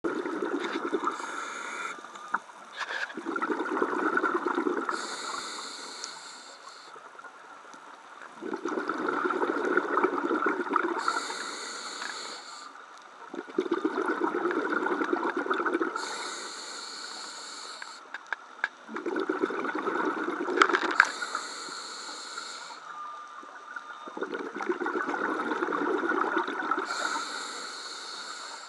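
Scuba diver breathing through a regulator underwater: a short hiss on each inhale, then a longer burst of bubbling exhaust, repeating about every five to six seconds for five breaths.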